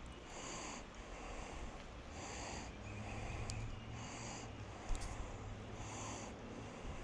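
A person breathing heavily through the nose close to the microphone, a hissing breath repeating about every two seconds, with one sharp click a little before the five-second mark.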